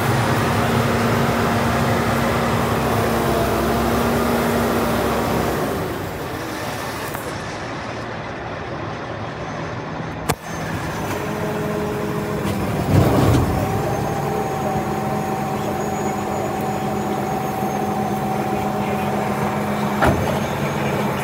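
Medium-duty truck's diesel engine running at idle, heard from inside the cab as a steady hum, with a sharp click about halfway through and a short louder burst soon after.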